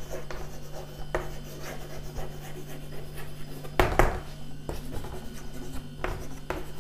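Chalk writing on a chalkboard: short scratching and tapping strokes as letters are formed, with one louder knock about four seconds in. A steady low hum runs underneath.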